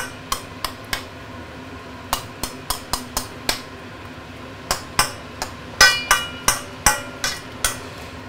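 Metal ladle clinking and scraping against a stainless steel wok during stirring: irregular knocks in short runs of several a second with brief pauses between. The loudest strikes ring briefly, just before six seconds in.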